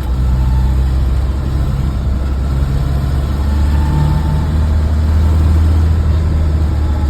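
1974 BMW 2002 Touring running with a steady low drone, and a faint higher whine that comes in briefly about half a second in and again about four seconds in. The owner supposes this is an abnormal noise from the rear axle.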